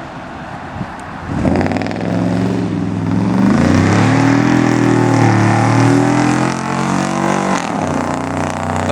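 5.7 Hemi V8 in a 2004 Dodge Ram 2500, running through shorty headers, true dual exhaust with Dynomax Ultra Flow mufflers and no catalytic converters. The revs climb about a second and a half in, hold for several seconds, then drop back near the end.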